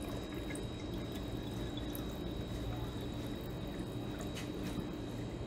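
Brandy being poured from a measuring cup into a glass jar of mashed cherries and cherry juice, a steady, fairly quiet pour.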